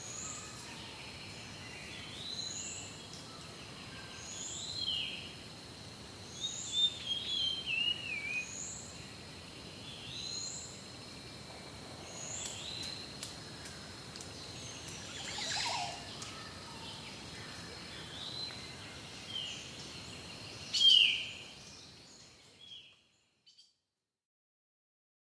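Birds calling in forest ambience: short rising chirps repeat about every second and a half, with a brief falling trill, over a steady high whine. The sound fades out to silence near the end.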